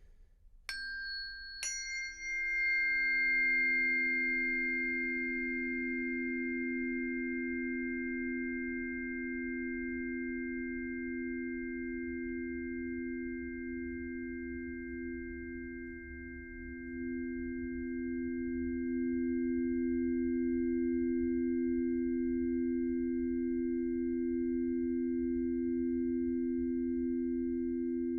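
Singing bowl struck twice in quick succession, then ringing on as a long sustained drone of two low, close tones that beat slowly against each other, swelling louder again about two-thirds of the way through.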